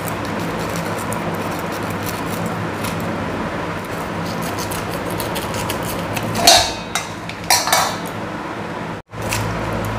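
A knife cutting a pineapple over a stainless steel bowl: light cutting and knocking sounds over a steady low hum, with two loud metallic clinks against the bowl about six and a half and seven and a half seconds in.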